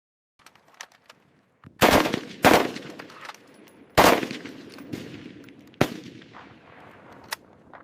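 M240 machine gun firing single shots and very short bursts: four loud reports, the first two about half a second apart, then one about four seconds in and one near six seconds, each with a long echoing tail. A few fainter cracks come between them.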